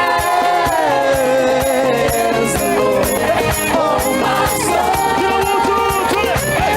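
Live church worship band playing a praise song: a steady drum beat with shaker and a regular high cymbal tick, under long held melodic notes that glide between pitches.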